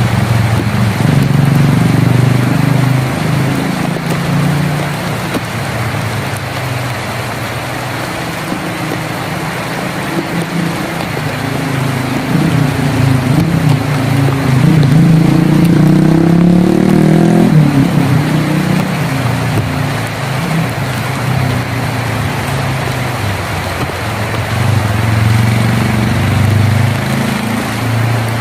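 Rain drumming steadily on a tin roof, with a motor vehicle's engine running close by. The engine's pitch climbs from about the middle, then falls off again a few seconds later.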